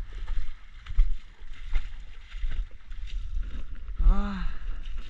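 Wind rumbling and buffeting the microphone, with scattered small knocks and rustles. About four seconds in comes a short hummed voice sound that rises and falls in pitch.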